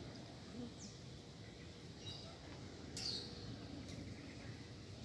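A few short, high bird chirps, the clearest about three seconds in, over faint low outdoor background noise.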